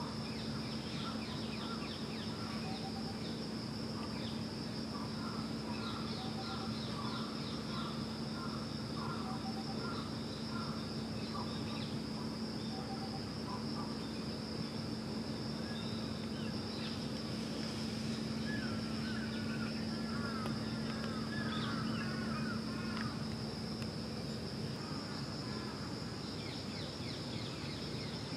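Insects shrilling steadily, with runs of short repeated bird chirps twice, over a steady low hum.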